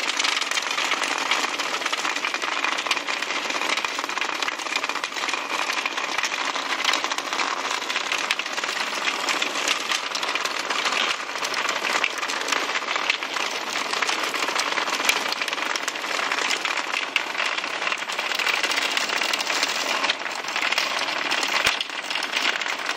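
Several Hexbug Nano vibrating robot bugs buzzing and skittering across a hard plastic arena: a steady, dense rattle of many tiny ticks.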